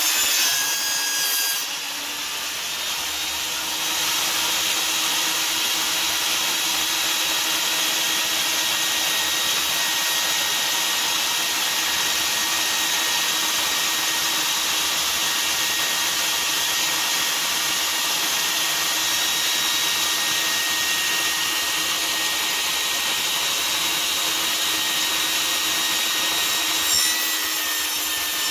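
Benchtop table saw running and ripping cedar boards lengthwise: a steady motor whine under the blade's continuous cutting noise, which dips briefly about two seconds in.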